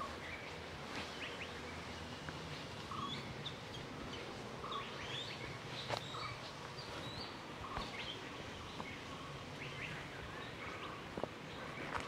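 Forest birds calling: many short chirps and whistles overlapping over a steady background hiss, with a sharp click about six seconds in.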